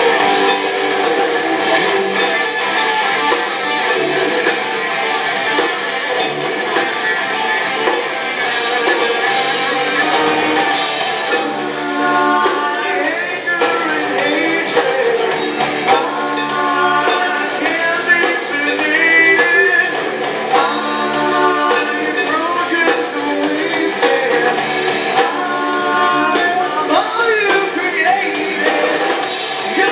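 Live rock band playing a song with distorted electric guitars, bass and drums. A voice sings over the band from about twelve seconds in.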